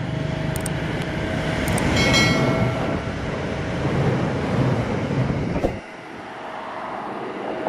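Simulated sound of an Alsthom ALD diesel-electric locomotive hauling a train past, its engine rumbling with a short high-pitched tone about two seconds in. Near six seconds the deep engine rumble drops away suddenly, leaving lighter rolling noise.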